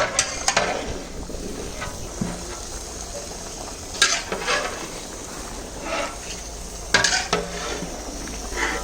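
A spatula stirring and scraping potatoes and capsicum frying in a pan, with a steady sizzle underneath and several sharp scrapes, the loudest about four and seven seconds in.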